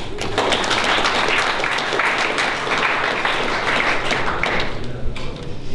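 Audience applauding, swelling quickly and dying away near the end.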